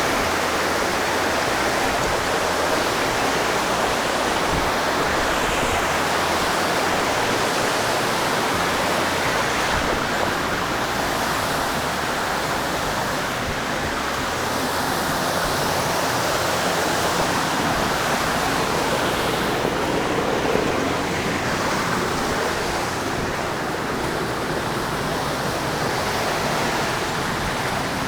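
Steady rush of water in a mountain stream.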